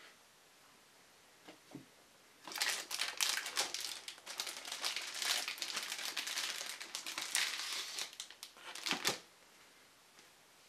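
Clear plastic bag crinkling as hands pull the paper manuals and leaflets out of it: a dense run of crackles lasting about six seconds, ending with one last sharp crinkle.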